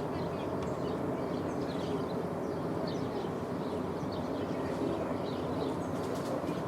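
Steady rolling rumble of a passing freight train, with birds chirping over it and a quick run of clicks near the end.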